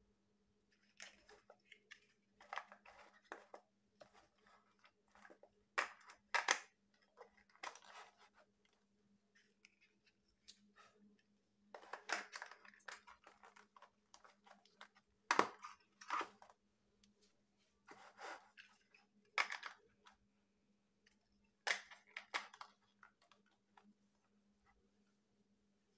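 Large hollow plastic building bricks clicking and clacking as they are pressed together and set down on a hard surface, with short scraping rubs, in irregular bursts separated by brief pauses.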